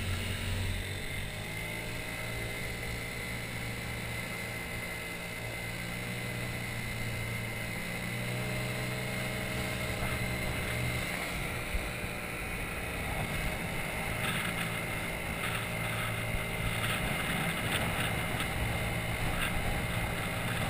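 Small motor scooter engine running while riding along a road, a steady drone whose pitch climbs a little as it speeds up.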